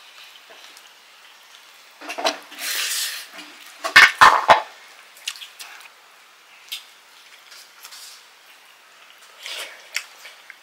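Close eating sounds of a rice and egg-curry meal: wet squishing and smacking with small clicks against a plate. Three sharp knocks come in quick succession about four seconds in.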